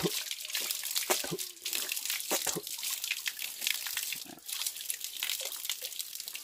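Water running from an outdoor tap and splashing as a man scoops it onto his face with his hands. A few short breathy vocal noises come from him between splashes.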